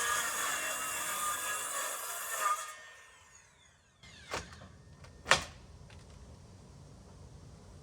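Power saw cutting through old wooden hull planking, then spinning down with a falling whine after about three seconds. Two sharp knocks follow, a second apart.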